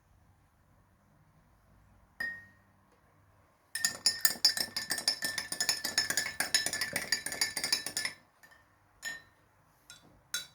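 A metal spoon stirring briskly in a drinking glass, mixing honey into a lime-juice-and-salt remedy: one ringing clink about two seconds in, then about four seconds of rapid ringing clinks, and a few scattered taps near the end.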